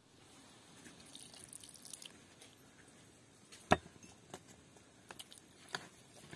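Liquid poured from a glass onto figs in a plastic bowl, trickling for about two seconds. Then one sharp knock, followed by a few lighter clicks of a metal spoon against the bowl as the figs are stirred.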